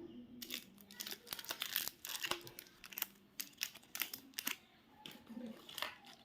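Chocolate wrapper being crinkled and torn open by hand: irregular crackling and rustling of packaging, in a small room.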